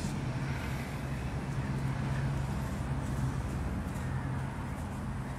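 Steady low hum with an even hiss of outdoor background noise, like distant traffic.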